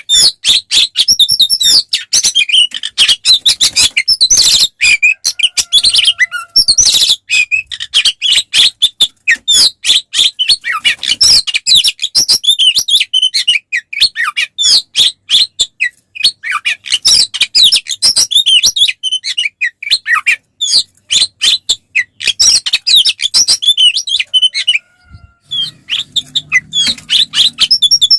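Oriental magpie-robin (kacer) in full fighting song: a rapid, near-unbroken run of varied chirps, whistles and trills. There is a short pause just before the 25-second mark.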